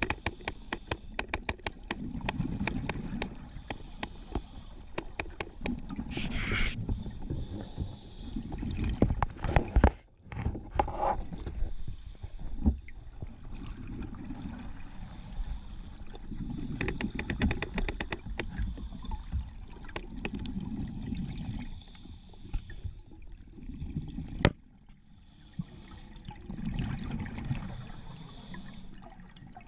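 Scuba regulator breathing heard through an underwater camera housing: exhaled bubbles rumble and gurgle in bursts about every three seconds, with scattered clicks and a loud knock about ten seconds in.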